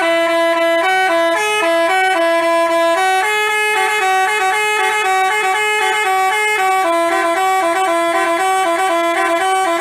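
Basuri telolet horn, an Indonesian multi-tone bus horn, playing a loud, fast stepping melody, its notes changing every fraction of a second without a pause.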